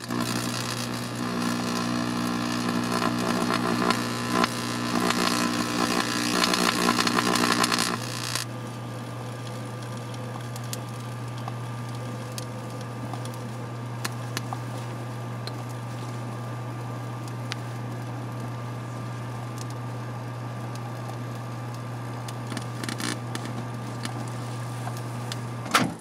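Microwave oven running with a cordless drill inside it: a loud crackling buzz of arcing for about the first eight seconds, which then stops abruptly and leaves the oven's steady low hum. A sharp click near the end as the oven is stopped and the door opened.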